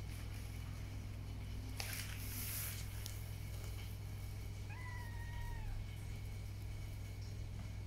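A young kitten gives one high meow about five seconds in, lasting about a second and falling slightly at the end. A short burst of hissing or rustling noise comes about two seconds in, over a steady low hum.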